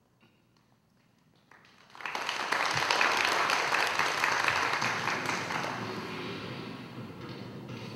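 Audience applauding. The clapping breaks out about two seconds in, is loudest a second or so later, then slowly dies down.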